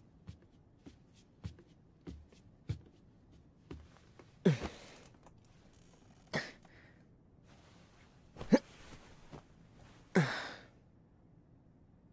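Soft footsteps, about one every half second, then a few short breathy sounds that fall in pitch as a person sits down and lies back on a bed. The last is a longer sigh.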